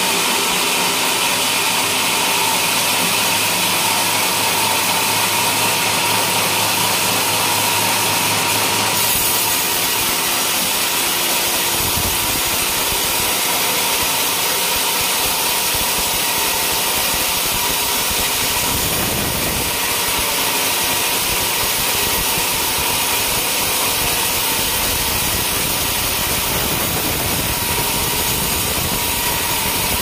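Band sawmill running, its blade cutting lengthwise through a coconut palm log: a loud, steady hiss of cutting over a constant whine. A deeper rumble joins about nine seconds in.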